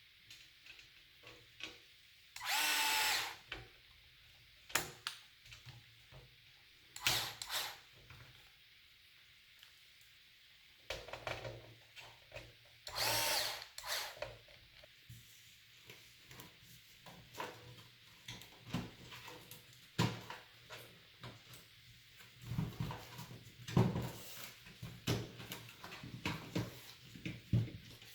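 Power drill-driver spinning in two short bursts of about a second each, a whirring whine, with clicks and knocks of parts being handled between and after them.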